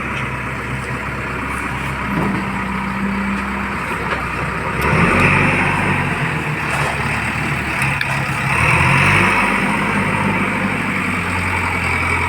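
JCB backhoe loader's diesel engine running, revving up about five seconds in and again near nine seconds.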